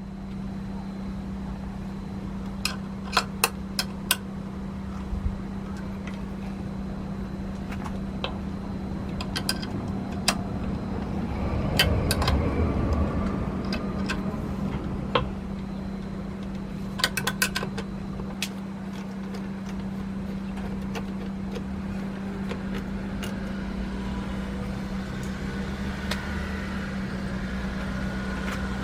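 Sharp metallic clicks and clinks of hand tools and loose engine parts during work on a small two-stroke motorcycle engine's top end, over a steady low hum. There is a louder, rougher stretch of handling noise about twelve seconds in.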